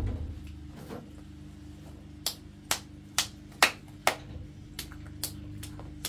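A series of sharp knocks, roughly two a second, starting about two seconds in, over a faint steady hum.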